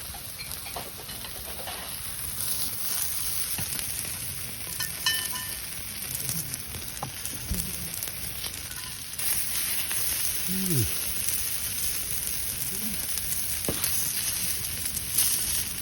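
Food sizzling and frying on an iron griddle over a campfire, a steady hiss that grows louder about nine seconds in.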